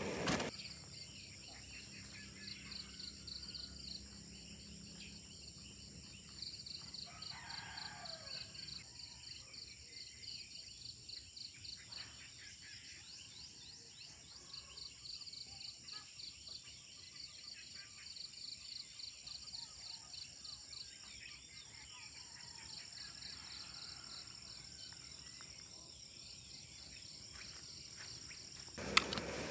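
Insects chirping in a fast, steady pulsing rhythm over a continuous high-pitched drone, with a brief bird call about seven seconds in.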